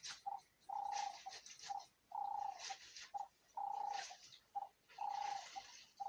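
Wild birds calling: a low, steady held note repeats about every second and a half, each followed by one or two short notes, with higher chattering calls in between.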